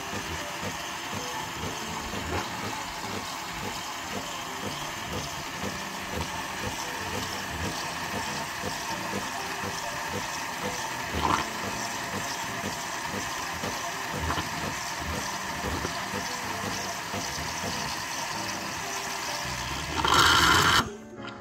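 A coffee machine's automatic milk frother running: the pump hums and pulses steadily while hot milk and air hiss out of the spout into the mug. Near the end there is a louder burst of hiss for about a second, then it cuts off as the frothing cycle finishes.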